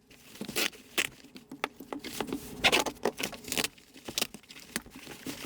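Body-armour vest panel being cut open: irregular snips, rustling and tearing of the fabric and layered ballistic material.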